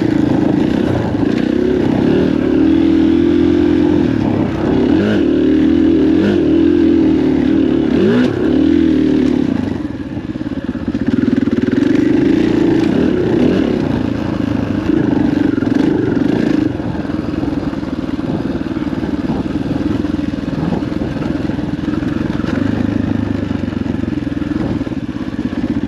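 KTM 500 EXC dirt bike's single-cylinder four-stroke engine running under throttle, the revs rising and falling repeatedly; it eases off about ten seconds in and again around two-thirds of the way through.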